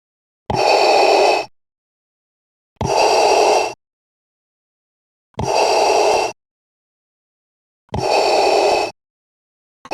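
Darth Vader's mask breathing sound effect, the Star Wars breath made through a scuba regulator: four breaths about a second long each, about two and a half seconds apart with silence between, and a fifth starting at the very end.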